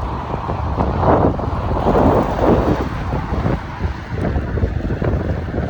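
Wind buffeting the microphone of a rider on a moving bike: a steady low rumble that swells in gusts about one to three seconds in.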